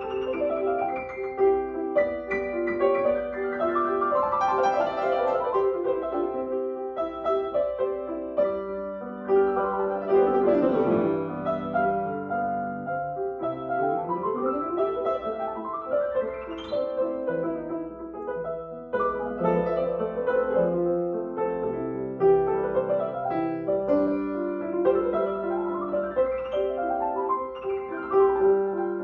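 Two grand pianos, a Steinway and a Mason & Hamlin, played together as an improvised duet on a hymn tune. Sweeping runs go down the keyboard about ten seconds in and back up a few seconds later, with more upward sweeps near the end.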